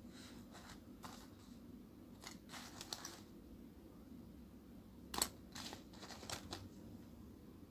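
Faint scattered clicks and rustles of a plastic 3D-puzzle toy Mini Cooper being handled, with a sharper click about five seconds in.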